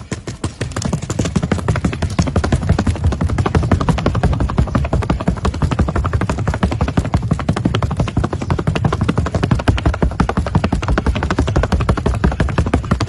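Paso Fino mare's hooves striking the ground in a rapid, even patter of many beats a second, the quick four-beat gait of the breed under saddle.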